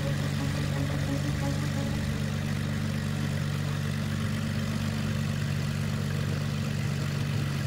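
Supermarine Spitfire fighters' piston aero engines running steadily at low power as the planes taxi, an even, deep drone.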